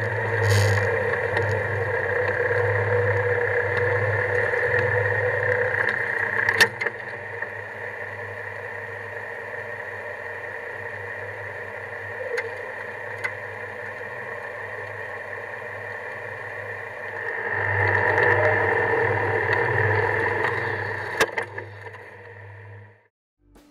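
A Jeep running with a steady low mechanical hum, louder for the first six seconds and again for a few seconds from about 17 s in, with a couple of sharp clicks; the sound fades out near the end.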